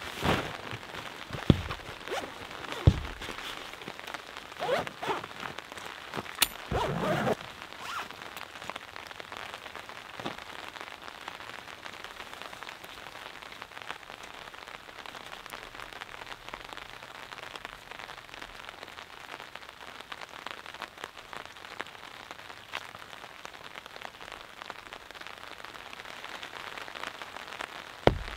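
Steady rain falling, a soft even hiss. In the first several seconds a backpack is set down and handled, giving a few sharp knocks and rustles, and there is one more knock near the end.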